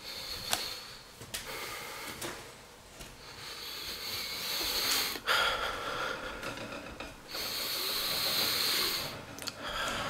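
A person breathing close to the microphone: several long, hissing breaths, each a second or two, with a sharp click about five seconds in.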